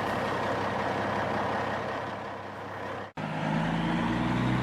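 Truck engine running, fading down and cutting off about three seconds in, then a steady low engine hum.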